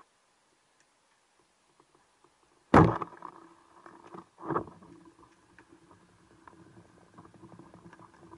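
Banded speargun fired underwater: one sharp, loud crack as the rubber bands release the shaft, about three seconds in. A duller thump follows about two seconds later, then faint clicking as the shooting line pays out.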